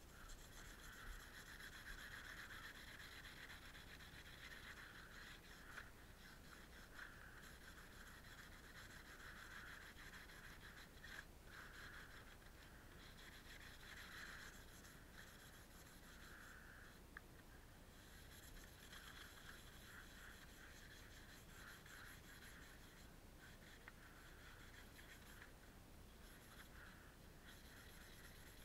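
Faint, scratchy rubbing of a round sanding disc worked by hand over the chalky painted top cowl of a Johnson outboard motor, in uneven back-and-forth strokes, scuffing the cowl before it is repainted.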